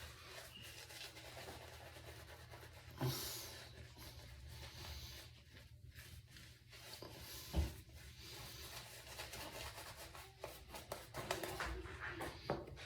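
Double-edge safety razor scraping through lathered stubble in short, quiet strokes.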